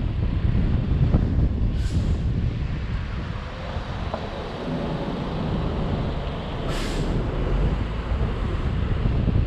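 Wind rumble on the microphone of a camera riding on a moving car, mixed with the car's road noise. The rumble eases mid-way as the car slows through an intersection, then builds again. Two short hisses come about two seconds in and again about seven seconds in.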